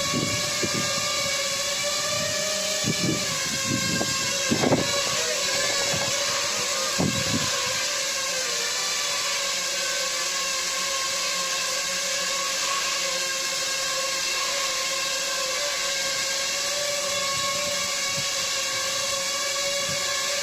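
Homemade quadcopter's brushless motors and propellers buzzing steadily as it hovers and manoeuvres, the pitch wavering slightly. There are several low thumps in the first seven seconds or so.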